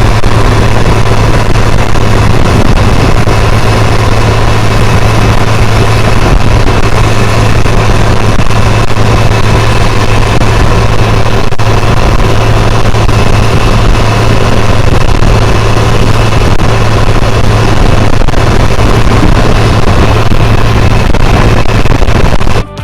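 Heavy farm machinery running steadily: a loud, even mechanical noise with a strong low hum.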